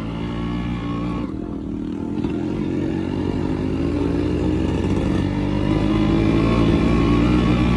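Vehicle engine running under load on a rough off-road track, growing louder over the last few seconds.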